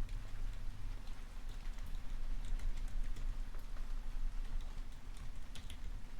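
Computer keyboard typing, with irregular key clicks that come in a quick cluster near the end, over steady falling rain.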